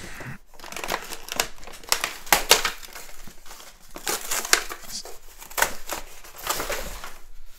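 Cardboard toy box being opened by hand, its flaps and inner packaging handled: irregular crinkling and crackling with sharp bursts throughout.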